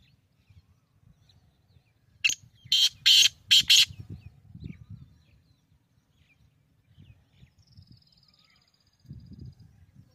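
Black francolin calling: a loud, harsh phrase of four grating notes in quick succession about two seconds in. A faint high trill follows near the end.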